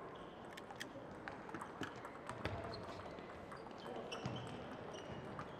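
Table tennis balls clicking sharply off tables and paddles at irregular intervals, in a sports hall.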